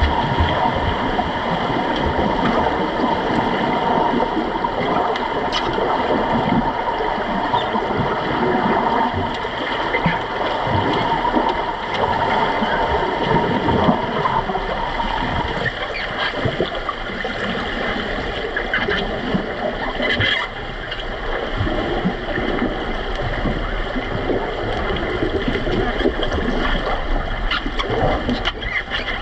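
Water noise heard from an underwater camera in a swimming pool during an underwater rugby game: continuous gurgling, bubbling and rushing as players swim and kick their fins, with scattered knocks. A steady tone runs beneath it and stops about halfway.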